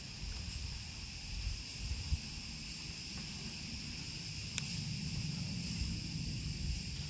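Steady chorus of forest insects, several high, sustained tones layered together, over a low rumble. One sharp click about four and a half seconds in.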